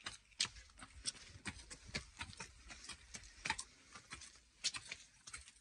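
Footsteps on concrete stairs: people climbing, light irregular steps about three a second.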